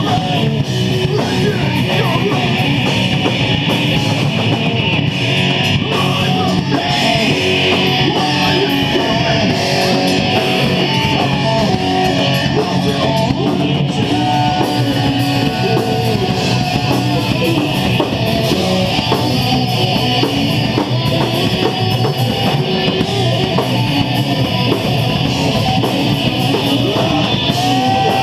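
Heavy metal band playing live and loud: electric guitars and drum kit driving on without a break.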